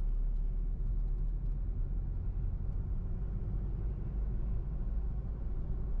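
Steady low rumble with no distinct events.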